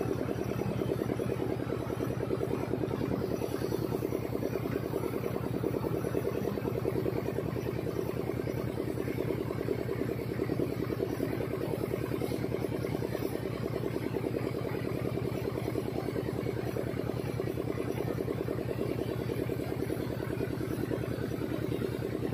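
Engine of a power sprayer's pressure pump running steadily with a fast, even throb, driving pesticide spray up through a hose and lance into mango trees.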